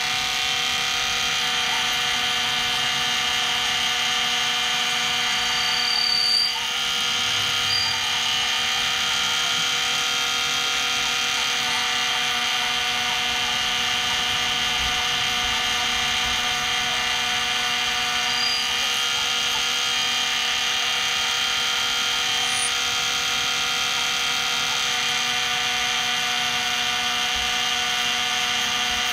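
Benchtop mini lathe running under power as it takes a cut, its motor and gears giving a steady whine. A few brief high squeaks come through, around six, eight and eighteen seconds in.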